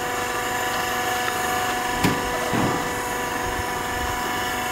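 Steady hum of an HDPE butt fusion welding machine's power unit, running with several fixed whining tones, and a short knock about two seconds in.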